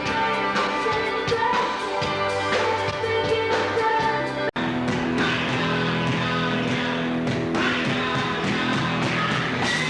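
Rock band playing with singing and guitar. The sound drops out for a split second about halfway through, then the music resumes with a different sound.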